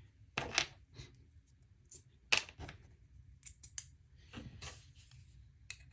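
An EMP EDC Nymble clone folding knife being handled: a string of short, sharp metallic clicks and snaps, the loudest about two seconds in, with light scraping between them.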